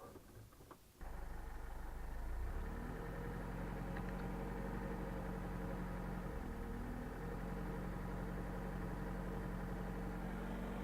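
Lada Niva engine running hard at steady revs, with the wheel spinning on a log pushed under it in deep mud: the car is stuck and can't climb out. It comes in abruptly about a second in, and the revs dip briefly midway.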